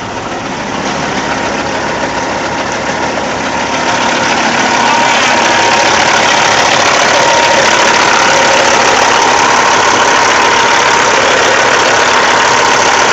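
Caterpillar C15 diesel engine running, growing louder over the first few seconds and then holding steady, with a steady whine over the engine noise. The engine is suspected of aerating its cooling system, and it is being run to check for this.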